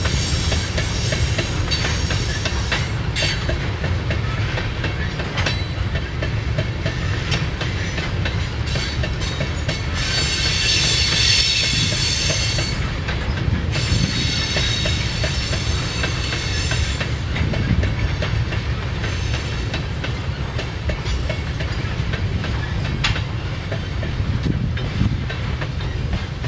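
Freight train of tank cars rolling past: a steady rumble of wheels on rail with clicks as the wheels cross rail joints. A high wheel squeal comes and goes, strongest about ten to thirteen seconds in.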